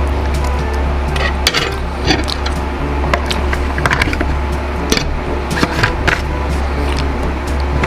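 Metal fork and spoon scraping and clicking against an aluminium foil tray as ribs are cut apart, in a series of short irregular clinks, over a steady low hum.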